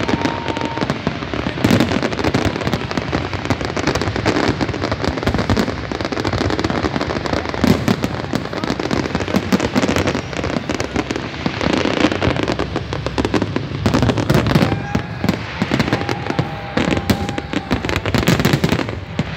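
Fireworks display: a dense, continuous barrage of bangs and crackling shells.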